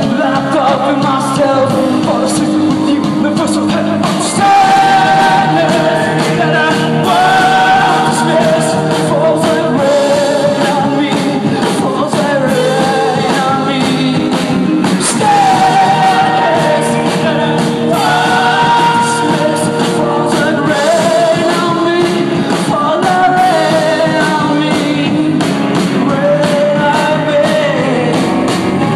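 Live rock band playing: a lead singer sings over guitars and drums.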